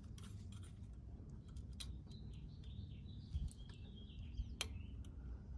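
Faint small metallic clicks from needle-nose pliers and a throttle return spring being worked onto a carburetor's throttle linkage, with a low knock near the middle. A bird chirps in the background for a few seconds in the middle.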